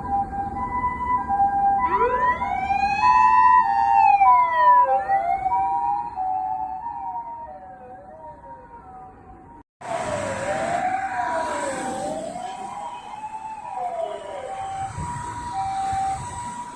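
Japanese ambulance two-tone "pee-po" siren alternating between two notes, joined by a wailing siren that rises and falls repeatedly. A cut about ten seconds in, then another ambulance's two-tone siren with the wail over traffic noise.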